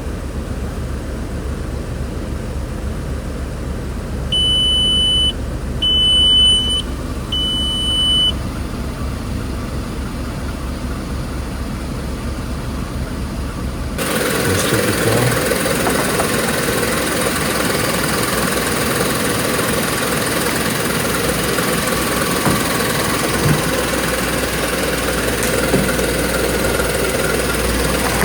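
VW Polo 9N car engine idling steadily, with three short high electronic beeps about four to eight seconds in. About halfway through the sound switches abruptly to a louder, rougher running.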